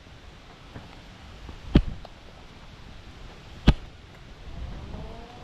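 Hiking staff striking the ground twice, about two seconds apart, in a steady walking rhythm, over a low rumble of wind on the microphone.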